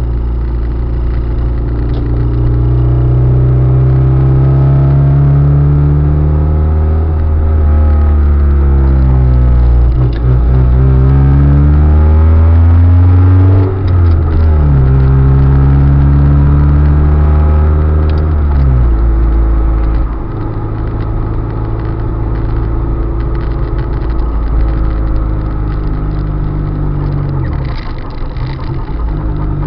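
Car engine running while driving, its pitch rising and falling several times as the car speeds up and slows, with short breaks like gear changes. About two-thirds of the way in it drops lower and the sound becomes rougher and quieter.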